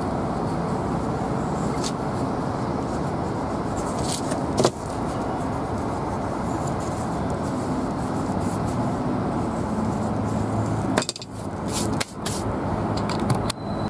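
Steady low rumbling background noise, like road traffic, with a few sharp clicks of knife parts being handled; the loudest click comes about four and a half seconds in.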